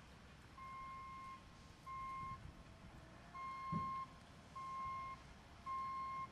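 Vehicle backup alarm beeping steadily in one pitch, about one beep a second, five beeps in all, the first about half a second in; the vehicle is reversing. A short low thump comes a little past the middle.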